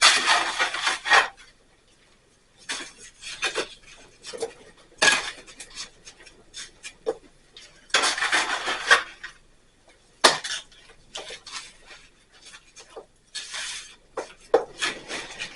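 A metal hand tool scraping and clinking against mortar and masonry in irregular bursts of about a second, with sharp knocks between them, as the wall is built up.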